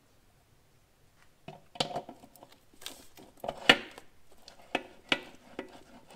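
Clutch disc being handled and fitted over the transmission input shaft inside an aluminium bell housing: a scattered run of sharp metal clinks and knocks, starting about a second and a half in, the loudest a little past halfway.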